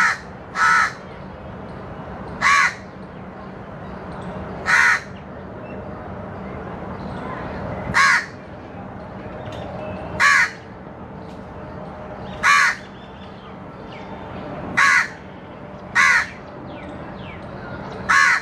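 A crow cawing single harsh caws, about ten of them, spaced roughly two seconds apart, over a steady low background hum.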